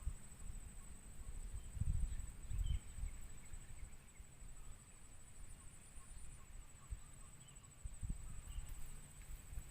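Rural outdoor ambience: a steady high-pitched insect-like trill, faint scattered bird chirps, and a few low thumps and rumbles, loudest about two to three seconds in.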